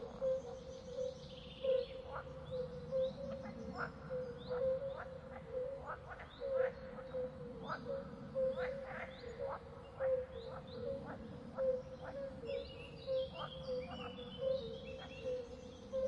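Forest swamp ambience of calling frogs and birds. A steady pulsing chorus sits under many short rising chirps every second or so. A flurry of quick, high bird notes comes in near the end.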